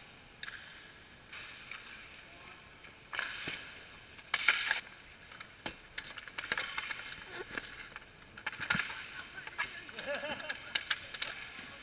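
Ice hockey play at ice level: skate blades scraping and carving the ice, with sharp clacks of sticks and puck. The loudest is a hissing scrape about four and a half seconds in.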